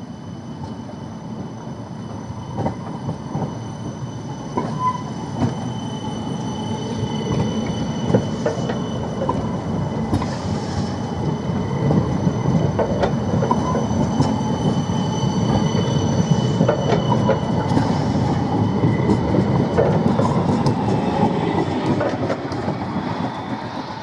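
A 56 m CAF Urbos low-floor tram passes close by. Its wheels rumble along the rails with scattered clacks over the track joints, and a thin steady high squeal sounds throughout. The sound swells as the long train goes past and falls away near the end.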